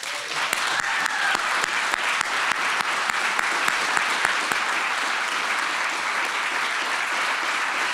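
Audience applauding: many hands clapping steadily, starting right after a winner's name is announced.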